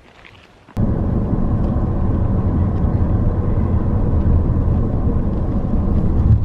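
Steady low rumble of a car driving. It starts abruptly less than a second in and holds at an even level.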